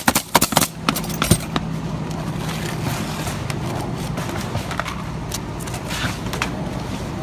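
A few sharp clicks and scrapes from shingle work in the first second and a half, over the steady low hum of a running motor.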